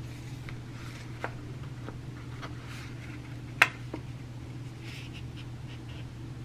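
Faint paper rustling and small clicks from stickers being peeled off a sheet and pressed onto a planner page, with one sharper tap about three and a half seconds in. A low steady hum runs underneath.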